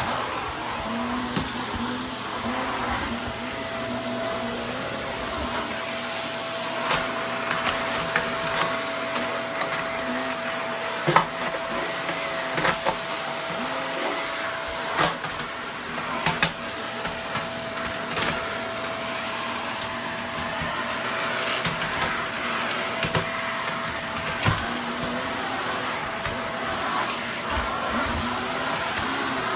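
Vacuum cleaner running steadily with a high whine as it sucks up crumbled sand-wall debris, with a few sharp clicks midway.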